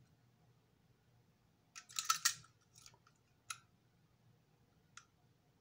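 Sharp clicks and a brief clattering rattle about two seconds in, then two single clicks, from a toy steam locomotive and tender being handled and turned over in the hand.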